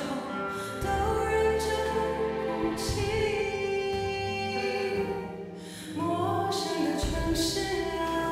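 A woman singing a slow song into a microphone over instrumental backing, with a short break in the vocal a little past halfway before it picks up again.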